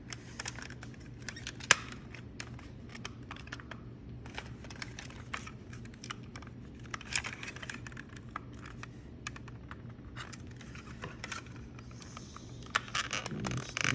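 Scattered small plastic clicks and taps of an Xbox One controller's shell and buttons being handled and snapped back together, with one sharper snap just under two seconds in.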